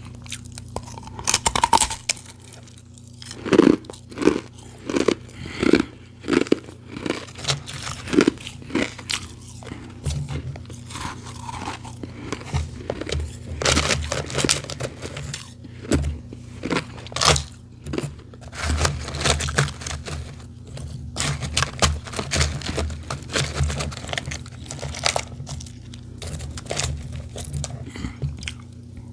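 Close-miked crunching of refrozen powdery ice being bitten and chewed: an even run of crunches in the first several seconds, then denser crunching and crackling. Later, a hand digging through loose powdery ice in a plastic tub adds scraping and low thuds.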